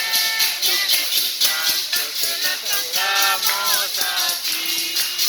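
Background music: a shaker keeps a quick, even rhythm under a sung melody.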